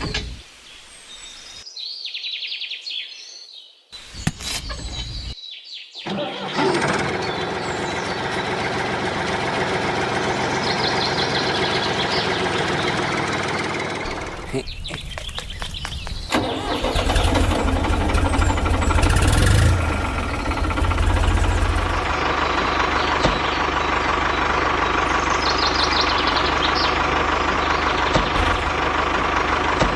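Tractor-type engine running steadily. It grows louder and deeper about halfway through. A few short, chopped-up sounds come first.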